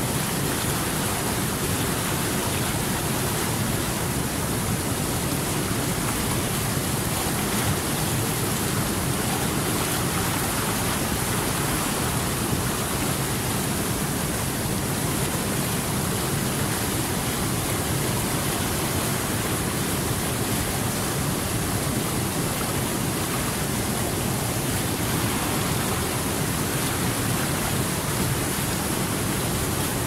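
Whitewater river rapids rushing over boulders: a steady, unbroken wash of water noise.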